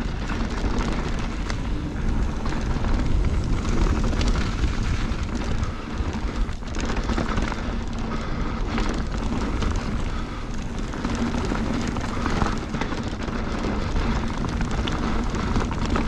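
Mountain bike riding fast down a dry, stony dirt trail: wind buffets the microphone as the knobbly tyres roll and crunch over dirt and stones, and the bike rattles and knocks over the bumps.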